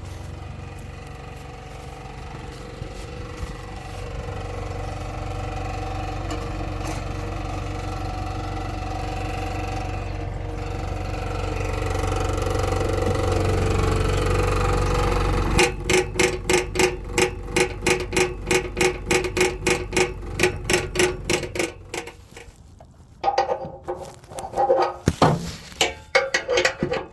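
A Jaguar's engine and exhaust running steadily, a low drone that grows louder over about fifteen seconds and then cuts off. Then a rapid, regular clicking, about four clicks a second, for some six seconds, followed by a few scattered knocks.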